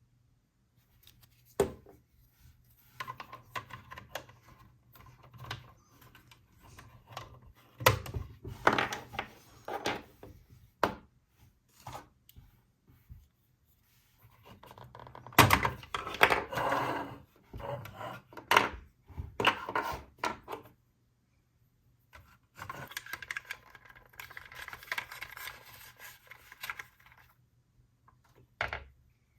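Small toys and packaging handled up close: irregular taps, clicks and knocks with stretches of rubbing and scraping, broken by short pauses.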